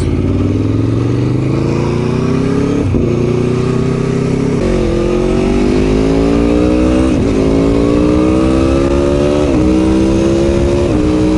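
Aprilia Tuono V4 1100 Factory's V4 engine, breathing through an Arrow exhaust, pulling hard as the bike accelerates away. The pitch climbs in each gear and drops sharply at five upshifts.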